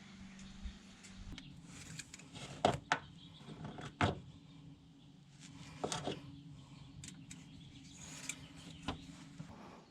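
Scattered sharp knocks and clicks, about six, the loudest a little over a second apart midway through, over a low steady hum.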